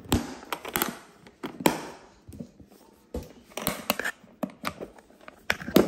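Irregular sharp clicks and knocks from the latches and metal frame of a stackable rolling train case as its top section is lined up and latched on, the loudest about a second and a half in and near the end.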